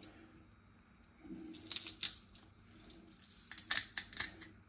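Kitchen knife working garlic cloves: a few short, sharp clicks and scrapes, one cluster about two seconds in and another near the end.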